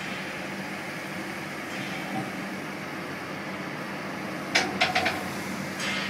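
Forklift truck engine running steadily, with a quick cluster of sharp knocks about four and a half seconds in.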